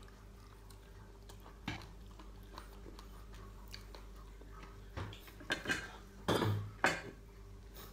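Someone eating fried chicken by hand: scattered short clicks and smacks of fingers and bones against a plate, mixed with chewing and lip-smacking, with a cluster of louder smacks near the end.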